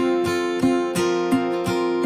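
Background music: a strummed acoustic guitar with a steady rhythm.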